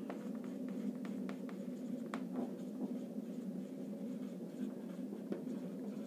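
Marker pen writing on a whiteboard: faint scattered taps and scratches of the pen strokes over a steady low room hum.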